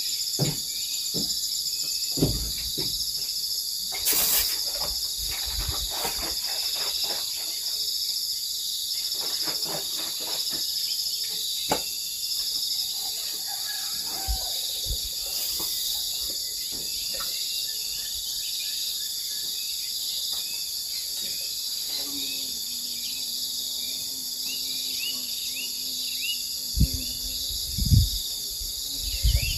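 Dense, steady, high-pitched chorus of insects such as crickets or cicadas, with scattered knocks and a few heavier thumps near the end.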